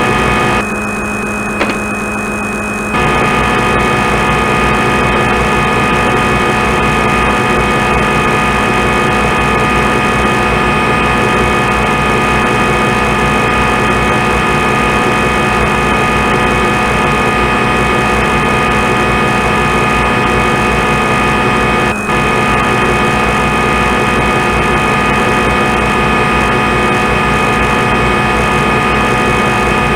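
Simulated CNC lathe machining sound from the simulator software: a steady mechanical hum made of several fixed tones. It thins out briefly about a second in and comes back in full at about three seconds, with a short break a little after twenty seconds.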